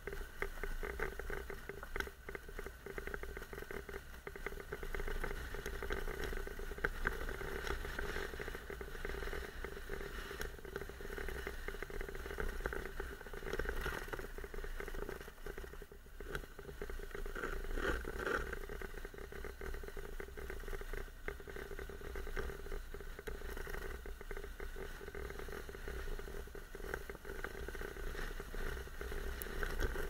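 Honda NC750X parallel-twin engine running at low speed off-road, overlaid with frequent small knocks and rattles from the rough dirt track.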